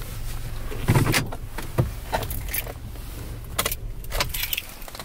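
Car keys jangling and clicking inside a parked car, over the low hum of the idling engine, which drops away right at the end.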